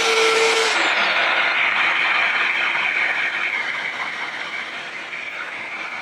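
A workshop power tool running with a steady hum and hiss; under a second in the hum and the highest hiss cut off, leaving a steady whooshing noise that slowly fades.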